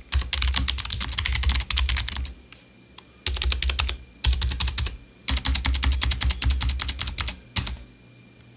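Typing on a Logitech G915 mechanical keyboard with its stock clicky low-profile switches: runs of rapid keystrokes broken by short pauses, stopping near the end.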